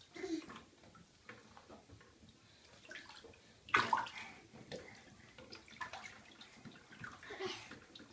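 Shallow bathwater splashing and sloshing quietly as a toddler paddles her hands in the tub, with one sudden louder sound about four seconds in.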